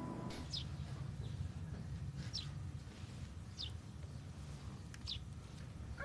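A small bird chirping: four short, high chirps, each sliding downward, spaced one to two seconds apart over faint low background noise.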